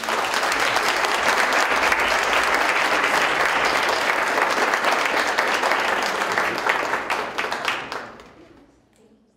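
Audience applauding, a steady patter of many hands that fades away near the end.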